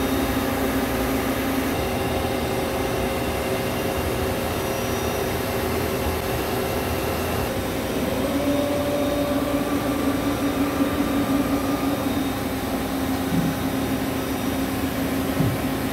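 Steady machine-shop drone: a whirring, humming mechanical noise with several steady tones, one of which grows louder about halfway through.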